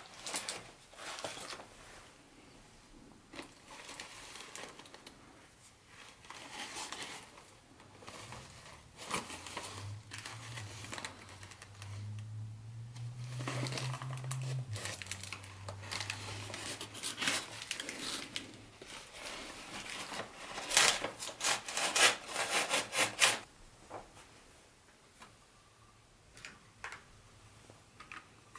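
Packaging being unwrapped and handled: irregular crinkling and tearing of wrapping, with a run of louder crinkles about three quarters of the way through.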